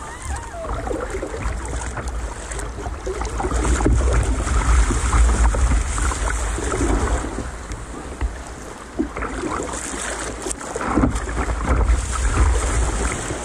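Wind buffeting the microphone of a camera mounted low on a sit-on-top kayak's bow, a steady low rumble, with sea water slapping and splashing against the plastic hull.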